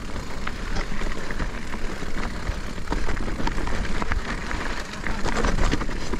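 Electric mountain bike riding over a rough, wet trail: a continuous low rumble of tyres and wind with irregular rattles and knocks from the chain, suspension and frame.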